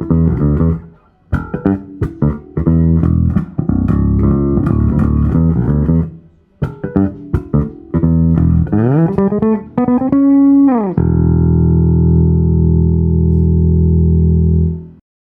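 Stem Classic Style J5 electric bass played unaccompanied: a run of plucked notes and riffs, then slides up and back down the neck about nine to ten seconds in. It ends on one long held note that rings for about four seconds before being cut off short.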